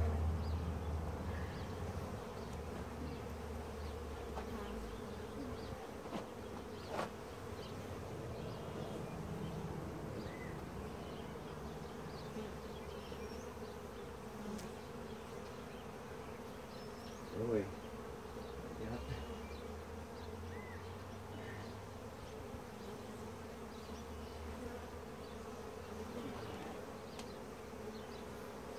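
Many honeybees buzzing steadily around an opened hive and its exposed frames, with a few brief knocks and clicks, the loudest about seventeen seconds in.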